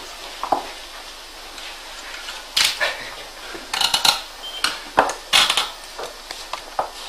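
Irregular clicks and light clattering, like parts of a machine being handled, in bunches about two and a half, four and five seconds in. There is no steady motor hum.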